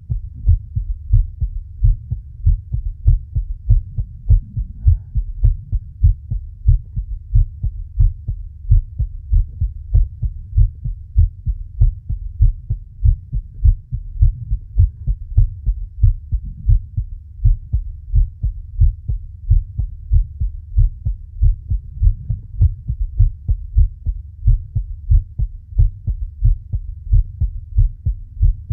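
Human heartbeat heard close up, a steady, fairly quick rhythm of low, muffled thumps.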